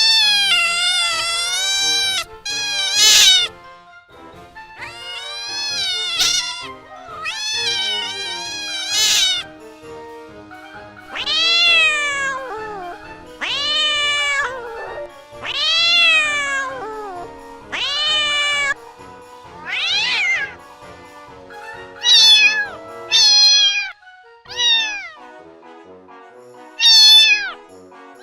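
Kittens meowing again and again: more than a dozen high calls, each rising then falling in pitch, some long and some short, over soft background music.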